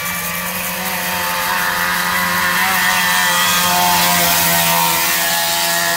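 An engine running at a steady, high pitch, growing gradually louder as it approaches, then cut off abruptly at the end.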